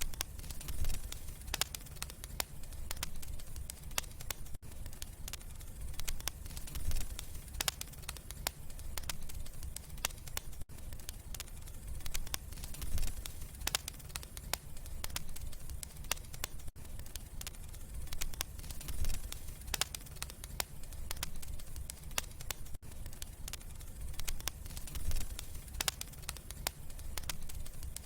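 Wood fire crackling in a fireplace: a dense run of sharp pops and snaps over a low rumble of flames. A very short dropout comes about every six seconds.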